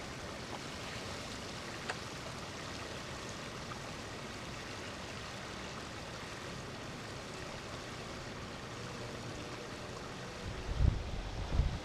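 Wind outdoors: a steady, even rushing hiss, then loud low gusts buffeting the microphone near the end.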